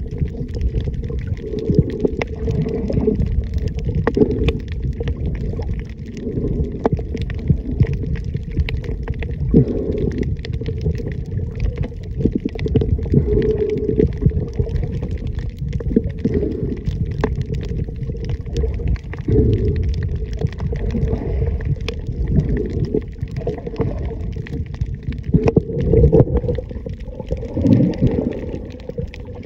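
Underwater sound picked up by a camera beneath the surface: a continuous low, muffled rumble of moving water, with many small clicks and crackles throughout.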